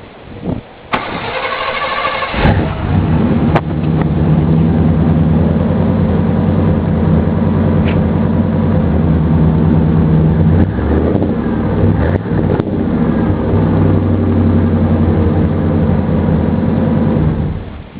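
Truck engine with a Flowmaster exhaust being started: the starter cranks for about a second and a half, the engine catches, and it idles loud and steady before being shut off, cutting out suddenly near the end.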